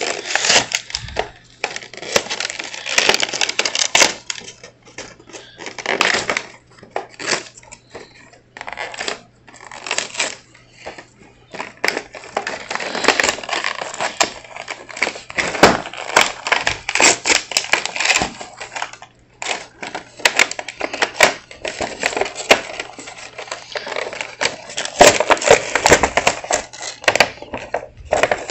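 Cardboard and plastic toy-car packaging being torn open by hand: irregular tearing, crinkling and crackling in uneven bursts, with a faint low hum underneath.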